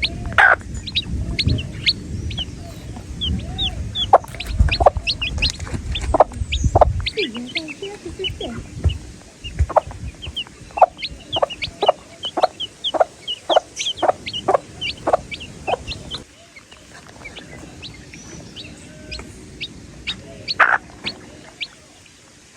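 Baby chicks peeping, many short high chirps overlapping. From about eight seconds in, a run of louder, lower calls repeats about twice a second for some eight seconds, and a low rumble underlies the first seven seconds.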